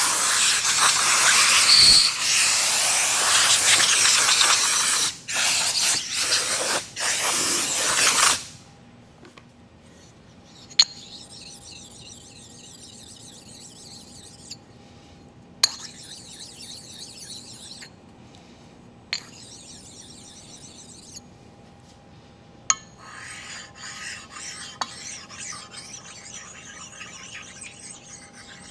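Compressed air blasting in loud bursts for the first eight seconds, blowing chips off a cast iron lathe compound slide. Then flat stones rub back and forth over its power-scraped ways in several passes of a few seconds each, with light clicks as a stone is set down, stoning off the burrs left by scraping.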